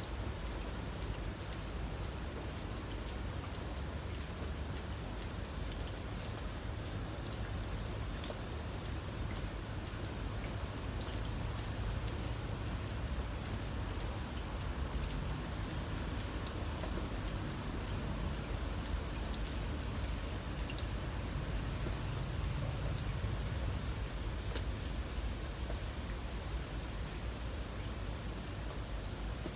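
Singing insects in a steady, unbroken high trill, over a low steady rumble.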